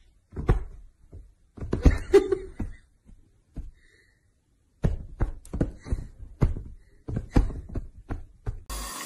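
A kitten pouncing and hopping on a soft bed, making a string of soft, irregular thumps with a short pause about halfway.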